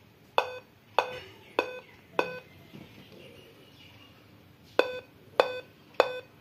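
Dell Inspiron 15-3521 laptop sounding its power-on beep code instead of booting: four short, sharp beeps about 0.6 s apart, a pause of a couple of seconds, then the four-beep pattern starting again. The pattern repeats continuously with the screen black, Dell's four-beep error, which points to a memory (RAM) fault.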